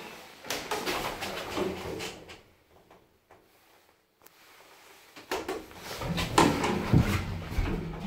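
Passenger lift doors rattling and knocking: a burst of clatter about half a second in, then, after a quiet spell, the cabin's sliding doors closing with louder metallic rattles and thumps near the end.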